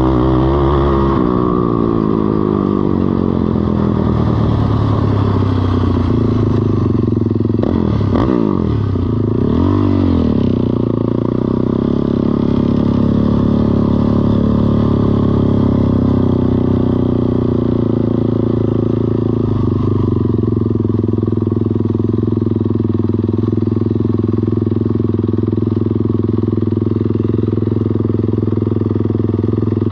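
ATV engine running, its pitch swinging up and down twice with the throttle about 8 to 10 seconds in, then holding steady.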